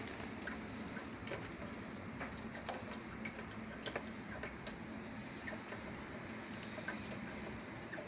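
Faint, irregular light clicks and scratches, typical of red-eared slider turtles' claws scrabbling against the sides of a plastic tub in shallow water.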